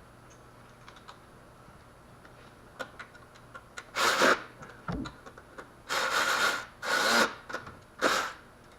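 Hand-tool and parts work in a car's engine bay: after a quiet start, four short rasping, scraping strokes about a second apart in the second half, with small ticks between them.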